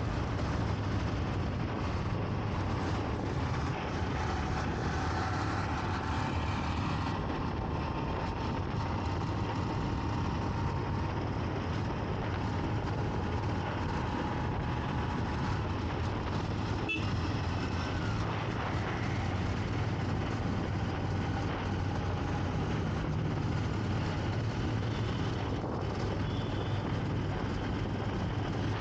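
Motorcycle engine running steadily while riding through city traffic, with a continuous rush of road and traffic noise.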